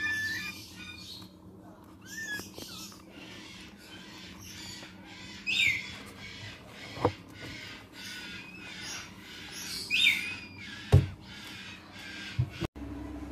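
Blue-eyed cockatoo chick giving repeated short, harsh food-begging calls during hand-feeding, with two louder calls that fall in pitch about five and ten seconds in. A few sharp knocks are heard in the second half.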